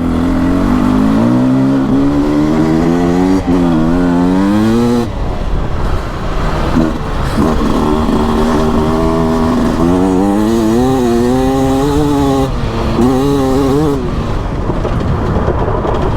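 Beta RR 300 two-stroke single-cylinder enduro engine under way, revving up and down as the throttle is opened and closed, its pitch rising and falling again and again.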